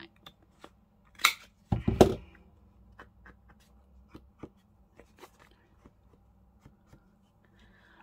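Paper and card handled and set down on a craft table: a sharp tap about a second in, a louder thump just before two seconds, then a scatter of small clicks and light rustles.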